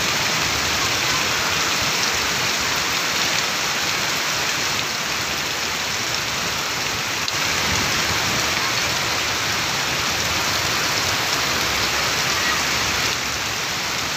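Heavy rain falling steadily onto flooded ground: a dense, even hiss.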